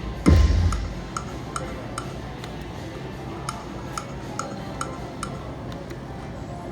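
Slot machine sounds: a low boom with a falling tone about a quarter second in, then an even electronic ticking about three times a second.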